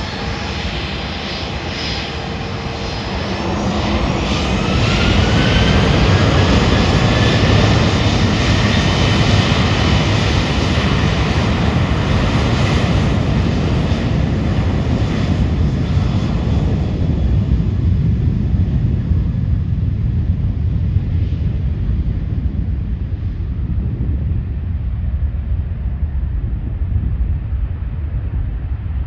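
Boeing 737-700's CFM56-7B turbofan jet engines at takeoff. A whine rises for a few seconds as the engines spool up to takeoff thrust, then a loud, steady jet roar follows. In the second half the high part of the sound fades, leaving a low rumble as the aircraft moves away.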